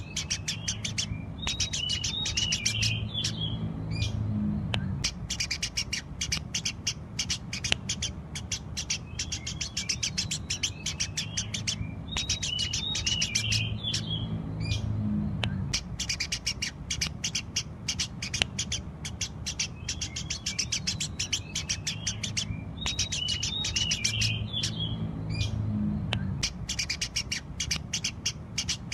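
Eurasian tree sparrows chirping rapidly and continuously, with a cluster of higher twittering notes recurring about every eleven seconds, over a steady low hum.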